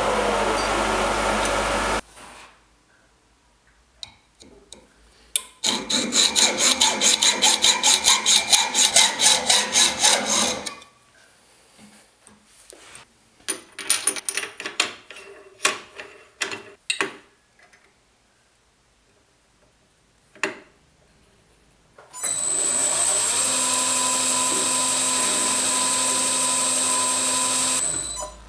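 Workshop machining: a milling machine spindle runs and stops about two seconds in, then a fast rhythmic scraping of hand metalwork at about four strokes a second. Clicks and knocks follow as tooling and a wheel blank are handled on a lathe, and near the end a machine motor runs steadily for about six seconds.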